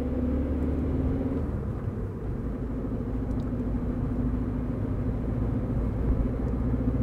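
Cabin noise of a moving car with the windows up: steady low road rumble and engine drone. The engine note changes slightly about a second and a half in.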